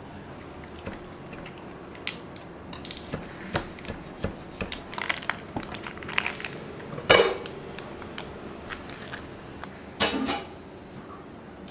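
Baking parchment crinkling and rustling as it is handled around a baked cobbler, with scattered small clicks. Two louder knocks of dishware come about seven and ten seconds in.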